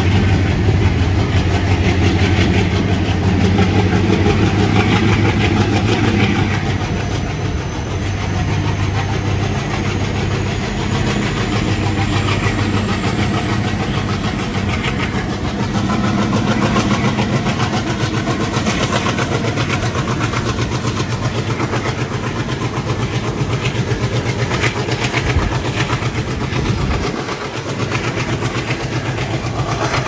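ALCO WDG3A diesel locomotive's turbocharged 16-cylinder engine working hard under load, heard from the train behind it, with a rapid, steady chugging exhaust. Partway through a high whine rises steadily in pitch and then holds.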